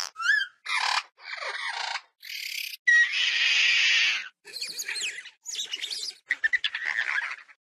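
Sound-designed Compsognathus calls: a string of short, high-pitched, bird-like chirps and squeaks with quick pitch glides, and a longer hissing screech in the middle, each separated by a brief silence.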